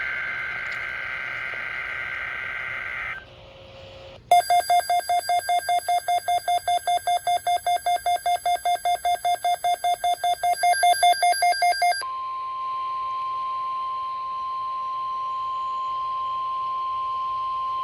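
Weather radio alert sequence. It opens with a screeching two-tone SAME data burst, the digital header that precedes an alert. A harsh electronic alarm then beeps rapidly, about five times a second, for roughly eight seconds. About twelve seconds in it gives way to NOAA Weather Radio's steady 1050 Hz warning alarm tone.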